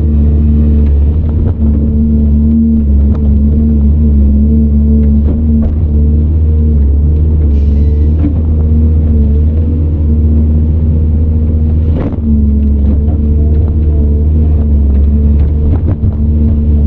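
CAT 395 excavator's Cat C18 diesel engine running steadily under load, with a sharp knock about twelve seconds in.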